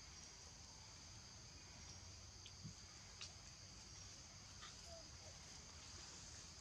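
Faint, near-silent outdoor ambience: a steady high-pitched insect chorus, with a few faint ticks in the middle.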